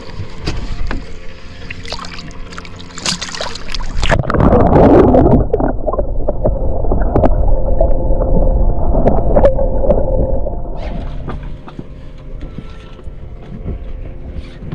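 A splash about four seconds in, then muffled underwater rushing with a steady hum for about six seconds, as heard by a microphone under the sea surface, ending about ten seconds in; handling knocks and clicks before it.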